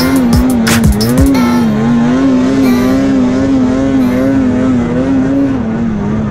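Snowmobile engine running at high revs while pulling through deep snow, a steady whine that wavers up and down in pitch as the throttle is worked. Music with a beat plays over it for about the first second, then the engine is heard alone until it cuts off at the end.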